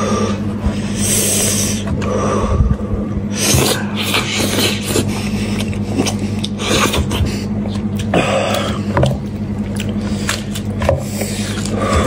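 Close-up eating sounds: hands tearing and picking cooked meat off a spice-sauced sheep's or goat's skull, with sticky, wet tearing and scraping and mouth-chewing, over a steady low electrical hum.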